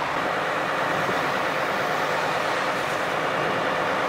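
Diesel engine of a stationary fire engine idling with a steady hum.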